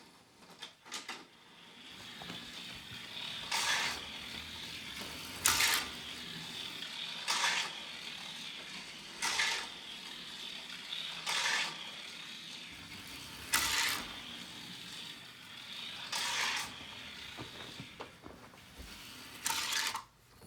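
Hot Wheels Sizzlers '70 Plymouth 'Cuda T/A toy car running on its battery-powered electric motor around a plastic oval track, with a steady high whine. A short louder burst comes about every two seconds, the bursts spreading further apart toward the end.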